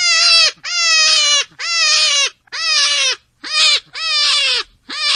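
An animal calling over and over: about seven loud calls in quick succession, each about half a second long and falling slightly in pitch, with short gaps between them.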